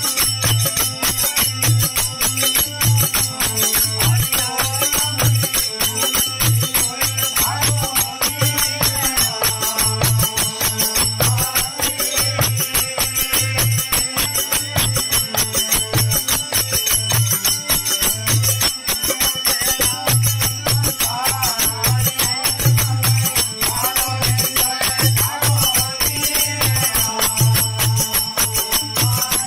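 Desi bhajan music: a harmonium playing the melody over continuous jingling metal percussion and a steady low beat about twice a second.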